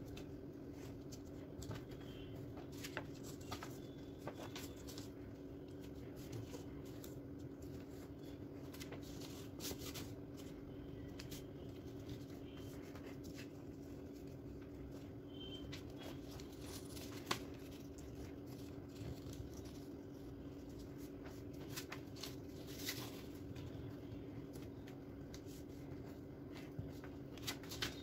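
A sheet of origami paper being folded into zigzag pleats by hand: scattered faint crackles, taps and rustles as each fold is pressed, the sharpest about 17 s in, over a steady low hum.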